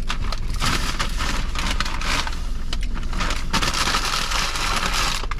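Paper burger wrapper and a paper takeout bag rustling and crinkling as they are handled, with a steady low hum underneath.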